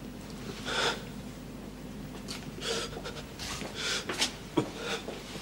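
A man panting and gasping heavily in ragged breaths, as if ill and in pain, with a couple of short knocks near the end.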